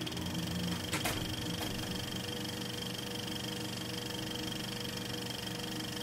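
A steady mechanical hum and whir made of several held tones over a hiss, with a single sharp click about a second in.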